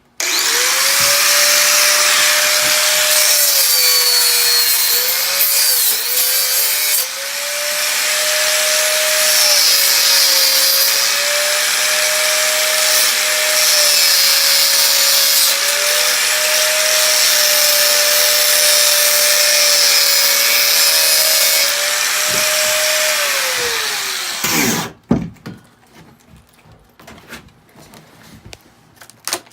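Electric drill motor running continuously for about 24 seconds, its steady whine wavering in pitch a little as if under load, then winding down and stopping; a few light clicks and handling sounds follow.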